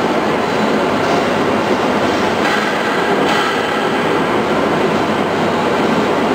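ART XR4800 CNC router working with its reciprocating knife, cutting fibreglass duct insulation: a loud, steady, dense mechanical noise.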